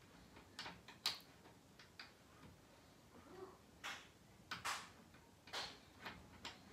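Faint, irregular metal clicks and scrapes of a hex key turning a bolt into the top corner of a baby crib's frame.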